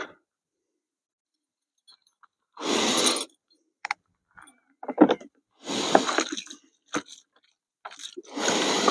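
Intermittent rustling and scraping as a trap is handled on the ground, with a few sharp clicks. Near the end, water is poured from a plastic bottle to rinse it.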